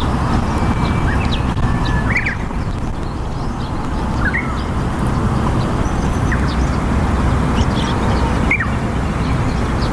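Steady low outdoor rumble with a few short, high bird chirps scattered through it, about three clear ones and fainter ticks between.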